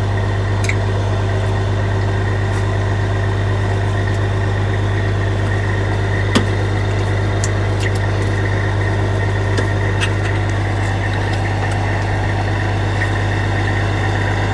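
Heavy-vehicle diesel engine idling steadily, with a few sharp clicks, the loudest about six seconds in.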